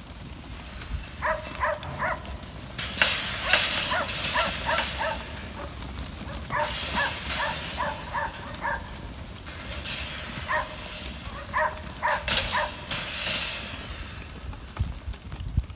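A flock of White Suffolk x Merino ewe lambs running past over dirt and dry leaves, their hooves pattering in waves. A dog barks through it in quick runs of short barks, about four or five a second.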